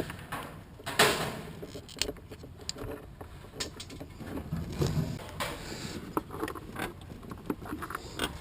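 Scattered clicks, rattles and rustling of hands working small plastic and metal parts while fitting an HID headlight bulb and its wiring into the headlight housing, with a louder scrape about a second in.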